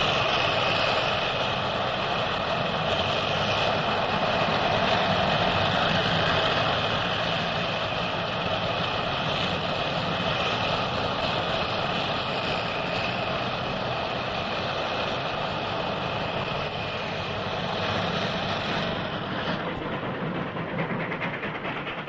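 Steady roar of military vehicles on the move: a continuous engine drone with road noise and a faint high whine running through it, thinning slightly near the end.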